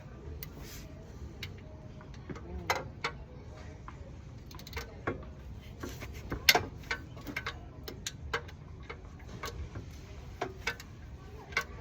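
Irregular clicks and clinks of hand tools working on metal car parts, with a sharper knock about six and a half seconds in.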